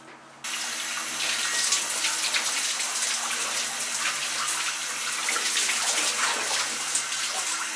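Water running steadily from a tap into a stainless-steel sink, turned on abruptly about half a second in.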